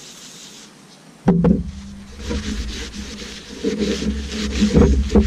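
Kitchen towel rubbing over a perforated steel exhaust silencer baffle as it is wiped clean with WD-40, with a knock about a second in followed by a low rumble and a few more knocks near the end.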